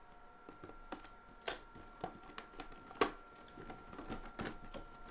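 Hands opening and handling a cardboard box: scattered light taps and rustles of cardboard, with two sharper clacks about a second and a half and three seconds in.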